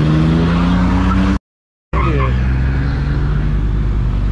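Vehicle engine accelerating, its note climbing steadily in pitch; the sound cuts out completely for about half a second, then returns as a steady, lower engine note.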